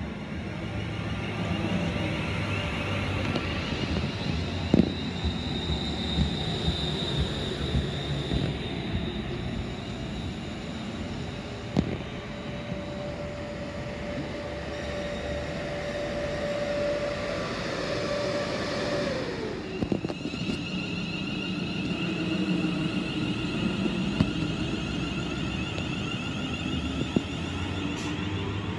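London Northwestern Railway Class 350 Desiro electric multiple unit drawing into the platform, with a steady rumble and a couple of sharp knocks. Its electric traction equipment whines, and one steady whine falls in pitch about two-thirds of the way through as the train slows. A different high whine then comes in.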